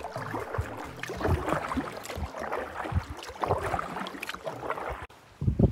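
Canoe paddle strokes in calm lake water: irregular dips and small splashes with water gurgling and trickling off the blade. The sound breaks off abruptly about five seconds in.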